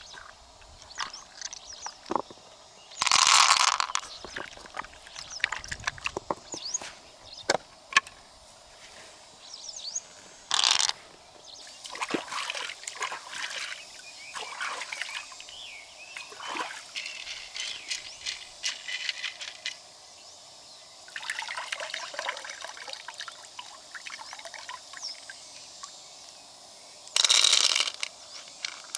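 Water splashing and pouring in short bursts, three of them loud, amid many small clicks and knocks of freshwater mussel shells being handled and opened.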